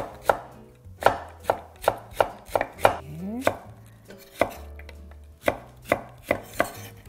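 Chef's knives slicing Korean radish into thin matchsticks on a wooden cutting board: a run of crisp knocks on the board, about two a second, with short pauses.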